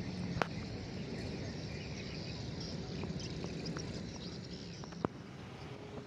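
Outdoor ambience: a steady low background noise with faint high chirps, and two sharp clicks, about half a second in and about five seconds in.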